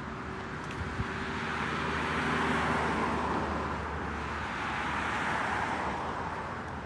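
Road traffic: cars passing on the adjacent road, their tyre noise swelling twice, about two seconds in and again around five seconds, over a steady low hum.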